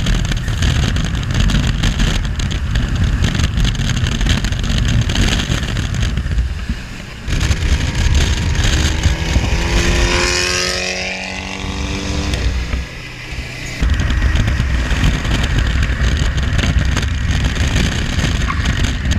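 Heavy wind and road noise on an exterior car-mounted microphone at highway speed. About ten seconds in, an engine's note rises sharply in pitch and then fades as a car accelerates alongside.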